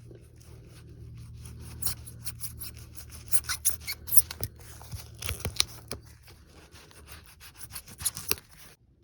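Small razor blade from a tire plug kit cutting the protruding ends of a freshly inserted tire plug flush with the tread: a run of irregular scraping, cutting strokes over a steady low hum. The sound cuts off abruptly near the end.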